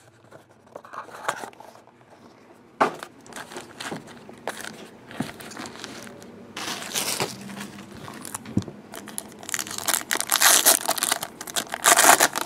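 Foil baseball card packs being handled and torn open: crinkling and tearing of the foil wrappers, in a short stretch around the middle and a longer, louder one in the last few seconds. Before that, light taps and knocks of the cardboard box and packs being handled.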